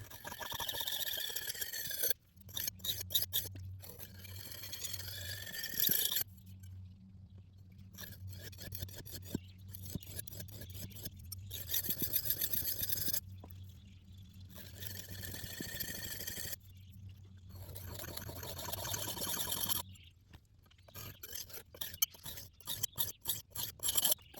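Scraping and rubbing strokes in short runs, broken by abrupt cuts, over a steady low hum.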